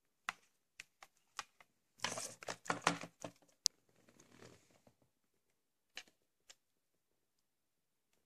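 A hard plastic VHS clamshell case and cassette being handled, giving scattered clicks and taps. About two seconds in there is a burst of plastic crinkling with a sharp click. Softer rustling and two more taps follow.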